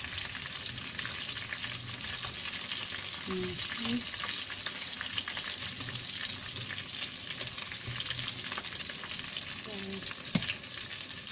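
Prawn spring rolls frying in hot sunflower oil, with a steady sizzle full of fine crackles. A single sharp click comes near the end.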